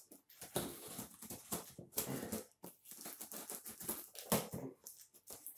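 A knife blade cutting and scraping through packing tape on a cardboard box, in a run of irregular short scratching, crackling strokes.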